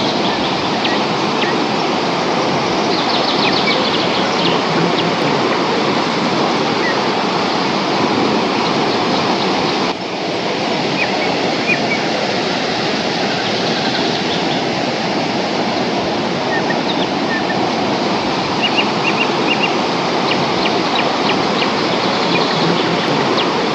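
Waterfall on the Pumpum River, water pouring and splashing in a loud, steady rush, with a brief dip about ten seconds in.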